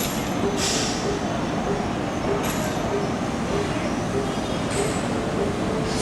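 Taksaka passenger train hauled by a CC206 diesel-electric locomotive, rolling into a station with a steady rumble. Short high hisses come about every two seconds.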